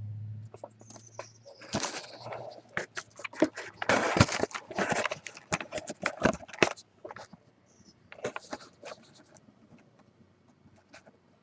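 Handling of trading cards and a cardboard card box: a quick run of rustling, scraping and clicking, busiest in the middle and thinning out near the end.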